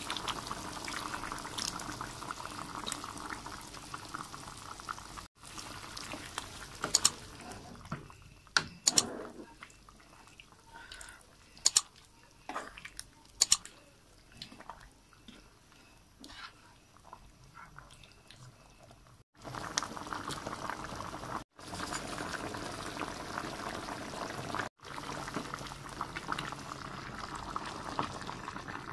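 A pan of thick coconut-milk chicken curry bubbling as it simmers while a spatula stirs it. In the middle the bubbling drops lower and there are several sharp clicks, like the spatula knocking against the pan.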